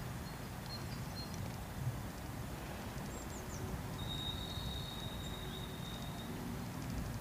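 Outdoor riverside ambience: a steady low rumble with faint, thin, high bird whistles. The longest whistle is a held note that starts about four seconds in and lasts about two seconds.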